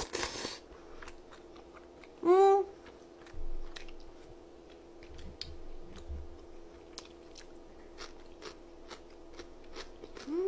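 A woman chewing soft, chewy tteokbokki rice cakes and fish cake close to the microphone, with many small wet mouth clicks. A short noisy burst comes as she takes the mouthful at the start, and she gives a brief rising hum about two seconds in, the loudest sound here.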